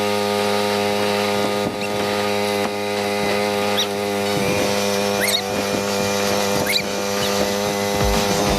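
A small engine running at a steady speed, with short high squeaks now and then.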